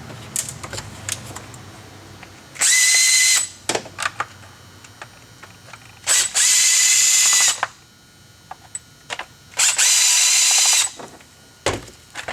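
Cordless power drill-driver run in three short bursts of about a second each, the middle one longest, with a steady high-pitched motor whine. Light clicks and taps of handling come between the bursts.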